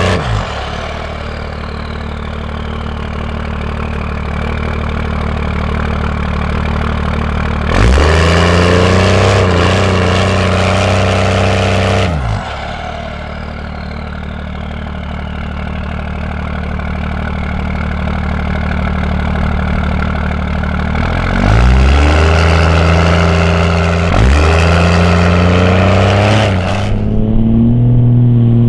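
Cummins 5.9 turbo-diesel running through a 5-inch turbo-back exhaust while driving. The engine note drops sharply twice as the throttle comes off, each time with a high turbo whistle falling away, then climbs slowly and jumps up again when the throttle goes back on.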